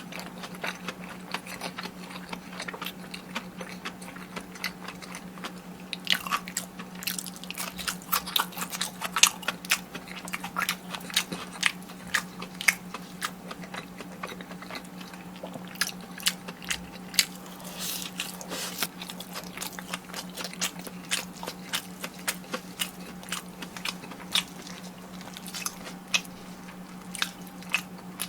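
Close-miked biting and chewing of crispy fried food: crunchy bites and rapid crackling, thickest in the middle stretch, over a steady low hum.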